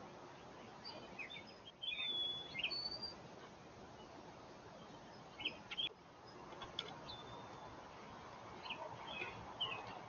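Small songbirds chirping and whistling in short, high calls in three spells, the loudest about two seconds in, over a faint steady hiss.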